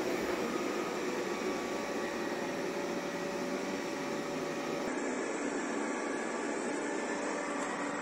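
Xiaomi Mi Robot Vacuum-Mop Essential robot vacuum running over a carpet: the steady whirring hum of its suction fan and brushes. About five seconds in the sound turns duller, losing its high hiss.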